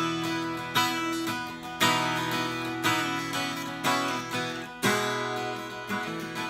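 Acoustic guitar (a Gopher Wood 820 with a solid spruce top and solid rosewood back and sides) strung with new BlackSmith AAOT carbon-coated strings, strummed in ringing chords at about one strum a second.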